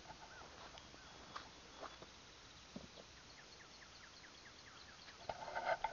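Faint farmyard ambience: a bird singing in the background as a run of quick, descending chirps, with a few soft ticks. Near the end come louder, short animal calls.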